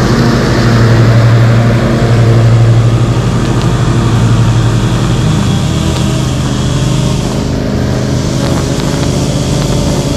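Lawn mower engine running steadily at close range, its pitch easing a little partway through.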